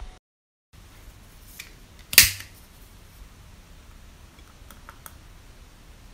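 A lighter struck once, a sharp click about two seconds in, then a few faint ticks over quiet room tone.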